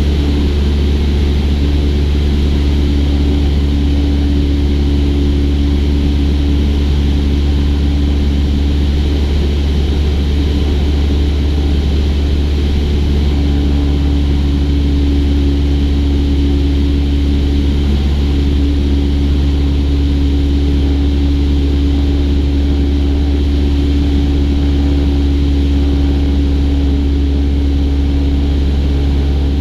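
Cessna 172's four-cylinder piston engine and propeller droning steadily in flight, at a constant power setting.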